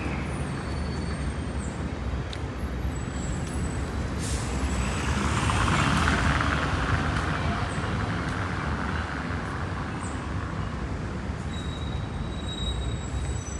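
Steady city traffic rumble, with a vehicle passing close about six seconds in: a hissing rush that swells and then fades.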